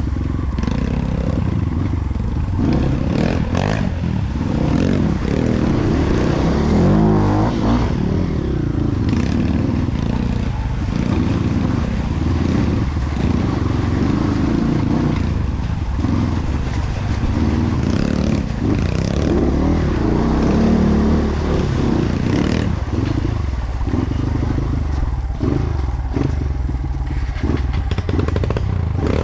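Trail motorcycle engine running continuously, its revs rising and falling.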